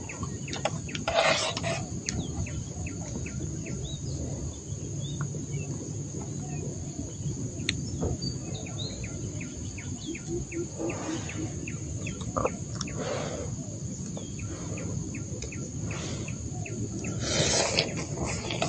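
Rural morning ambience: a steady high-pitched insect drone with many scattered short bird chirps and a few louder calls over a low background rumble.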